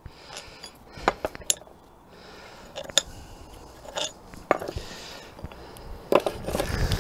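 Irregular sharp metallic clinks and knocks as a steel NATO swivel tow hitch and hand tools are handled on a workbench while the hitch's bottom plate is worked loose.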